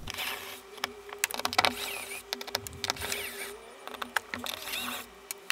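Battery drill running steadily as it spins the self-bailer's fixing screws out of a plastic dinghy hull, with many clicks, small rattles and short squeaks from the screws and fittings.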